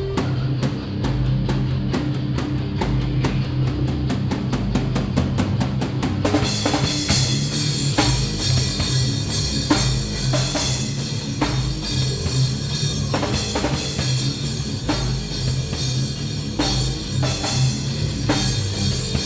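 Live rock band playing an instrumental passage: drum hits quicken in a build-up over the first six seconds, then the full band with drums and guitars crashes in and drives on at a steady beat.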